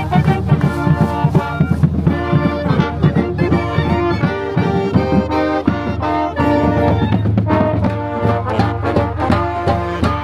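College marching band playing at close range: the brass section sounding held chords that change every second or so, over a steady beat of drum strokes.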